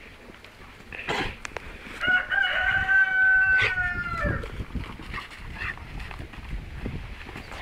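A rooster crows once: a long, held call lasting about two seconds that drops in pitch at the end.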